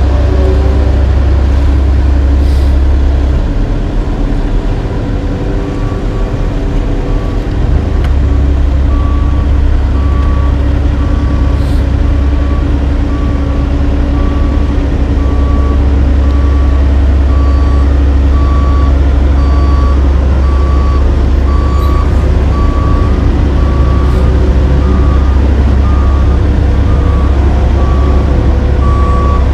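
Heavy diesel engines of a dump truck and an asphalt paver running steadily, with a backup alarm starting about five seconds in and beeping at an even pace from then on.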